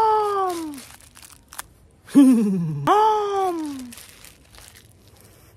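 A man's drawn-out, exaggerated vocal cries, each sliding down in pitch: one at the start and two back to back about two seconds in. Between and after them comes the crinkling of a thin clear plastic bag being crumpled in his hands.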